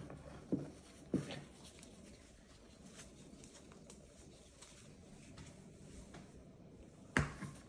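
Moluccan cockatoo's beak knocking and scraping on a stone countertop while it picks at and chews small scraps. A few sharp knocks come about half a second and a second in and another near the end, with faint light clicks and scratching between.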